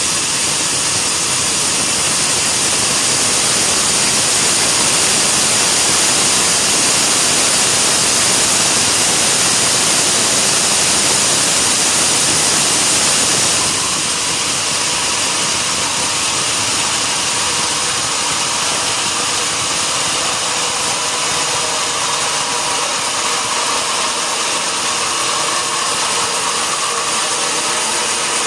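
Sawmill machinery running steadily with a loud, hissing noise. About halfway through the sound shifts and turns a little quieter, with a steady hum.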